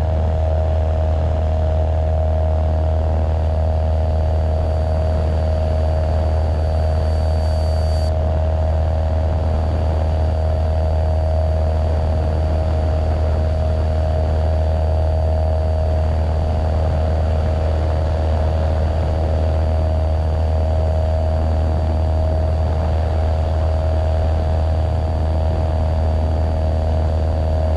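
Cessna 172SP's four-cylinder Lycoming IO-360 engine and propeller droning steadily in flight, heard from inside the cabin, with a faint thin high tone above it from a few seconds in.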